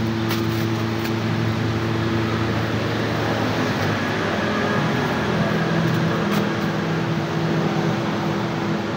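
Steady machine drone with a held low humming tone; the hum shifts in pitch around the middle, and a few faint clicks sound over it.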